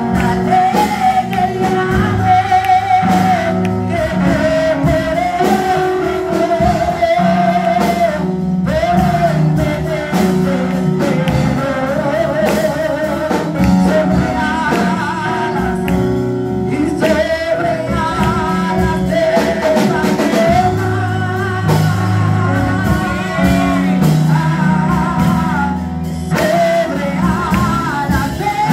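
A woman singing a Spanish-language worship song into a microphone, amplified through a PA, over electronic keyboard accompaniment with sustained chords and bass.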